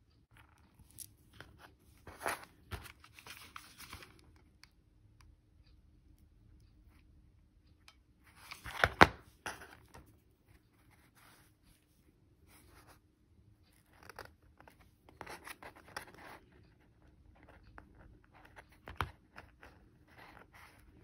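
Small coquina shells being handled by hand over cardboard: irregular clicks, scrapes and crackling rustles in bursts, the loudest about nine seconds in, over a faint steady hum.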